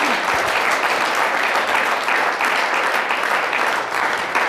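A studio audience applauding, steady and dense with many hands clapping.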